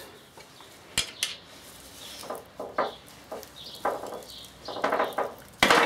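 Metal tool clicking and scraping against the old drive shaft seal and the gearbox casing as it is prised out of a VW 1303S gearbox, with a sharp click about a second in and a louder clatter near the end as the stubborn, metal-cased seal comes free.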